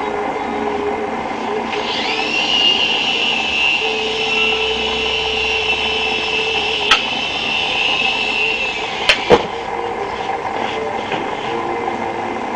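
Small electric RC helicopter motor and rotors spooling up with a rising whine about two seconds in, holding a steady high whine for about seven seconds, then cutting off. A sharp click comes midway, and two knocks follow soon after the motor stops.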